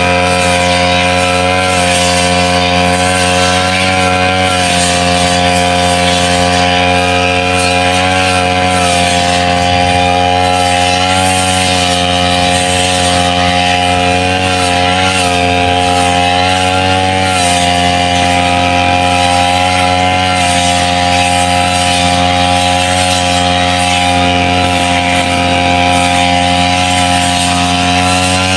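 Backpack brush cutter's small petrol engine running steadily at high speed while cutting wet grass. Its pitch dips briefly a few times and then recovers.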